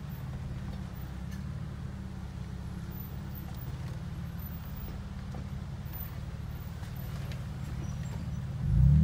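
Jeep Wrangler engine idling, heard from inside the cab as a steady, pulsing low rumble; near the end it swells as the engine is revved.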